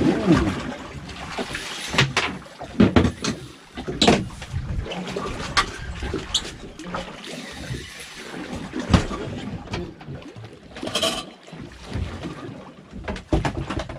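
Water slapping against a small fishing boat's hull, with irregular knocks and bumps on deck and a few brief muffled voices.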